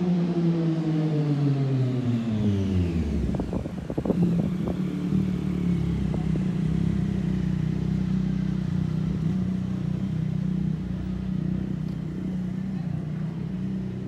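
Street traffic: a motor vehicle's engine falls in pitch as it goes by over the first three seconds, with a few sharp knocks about four seconds in. A steady low engine hum follows.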